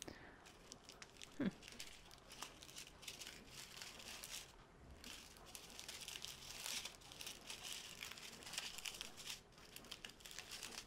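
Small plastic bags of diamond-painting drills crinkling faintly as they are handled and shuffled by hand, in a run of soft, scattered crackles.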